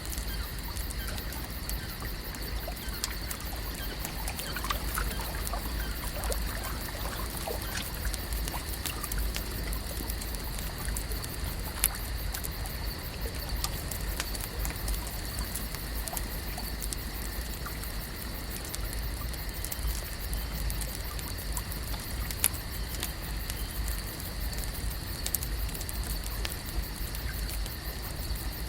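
Lake ambience: water trickling and lapping with scattered small ticks and drips over a steady low rumble, with a steady high hum running through it.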